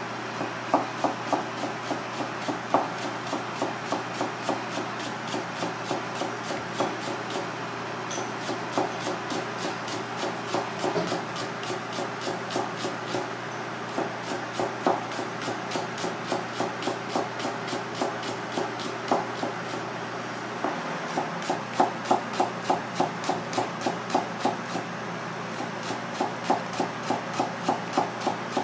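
Chef's knife rapidly slicing a Japanese long green onion (negi) into fine shreds on a plastic cutting board: quick, even knocks of the blade striking the board, about three to four a second.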